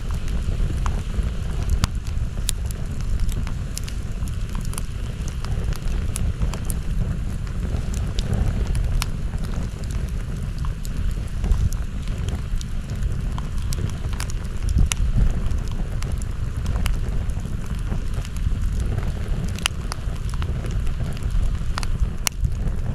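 Wood campfire burning, crackling with sharp pops at irregular moments, over a steady low rumble.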